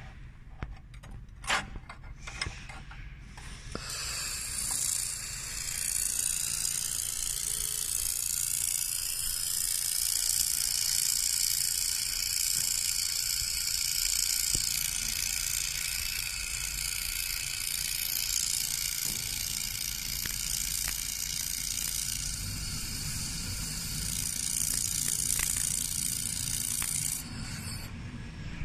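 A 1500 W laser welding machine welding stainless steel: a few sharp clicks, then a steady high-pitched hiss from about four seconds in that stops abruptly near the end.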